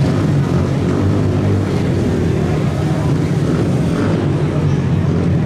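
Mini four-stroke shifter ATV engines running steadily.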